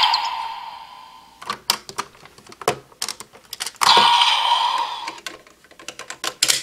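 Plastic clicking and clacking of a DX Kamen Rider Geats toy belt and its Powered Builder Buckle being worked by hand. The belt's electronic sound effect fades out at the start, and another short electronic sound goes off about four seconds in.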